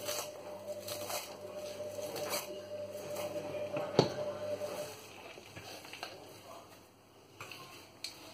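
Kitchen knife chopping parsley on a plastic cutting board in a few strokes, then a sharp knock about four seconds in as the knife is set down on the board. After that, softer rustling and scraping as the chopped leaves are gathered up and scooped into a plastic blender cup.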